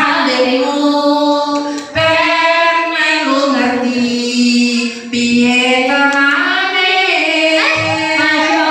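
A woman singing into a handheld microphone, holding long drawn-out notes, with short breaks about two and five seconds in.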